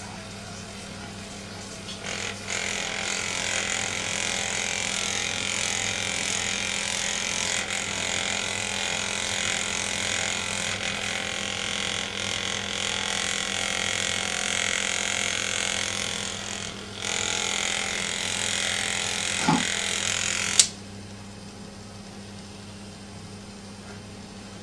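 Handheld Magnessage electric magnetic massager running with a steady motor buzz while pressed against a cat's fur, with a brief drop near 17 seconds. About 20 seconds in it stops with a sharp click, leaving only a faint low hum.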